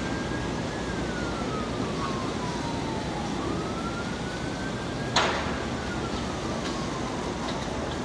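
Emergency-vehicle siren wailing, a single tone that rises and then slowly falls, twice, over steady outdoor background noise. A single sharp click comes about five seconds in.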